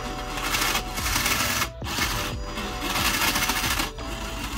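A 3D-printed linear actuator runs under power in two spurts of about a second and a half each, each ending abruptly: its DC motor spins a nut along a threaded rod, and the actuator rattles and shakes hard on its fast new motor driver.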